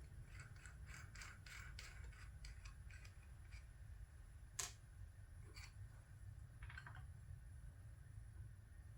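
Faint light clicks and taps of small metal tools and parts being handled: a quick run of clicks in the first few seconds, then a few single taps, over a low steady hum.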